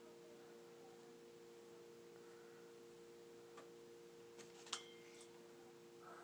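Near silence with a steady low hum. A few short clicks of a paintball gun being handled and worked on come in the second half, the loudest a sharp one a little under five seconds in.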